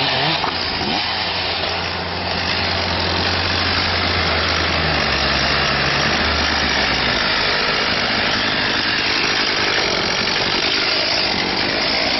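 Engine running steadily between cuts, its pitch stepping down slightly about five seconds in, over a steady machine noise.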